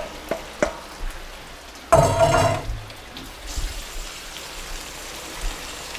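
Chicken sizzling in a frying pan, with a few sharp utensil taps in the first second and a louder clatter about two seconds in, then a steady high sizzle.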